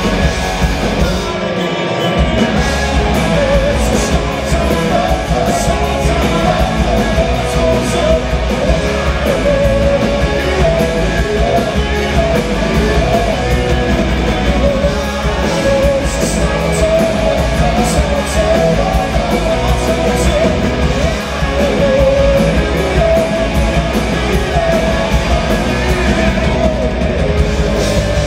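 Live hard rock band playing loudly: distorted electric guitars, bass, drums with cymbal crashes, and keyboards, with a lead singer's voice over the top.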